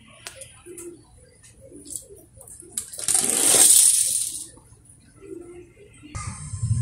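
Small toy cars rolling across rough concrete with a gritty rattle and clinking against other toy cars. The loudest rolling rush comes about three seconds in, and a deeper rumble starts near the end.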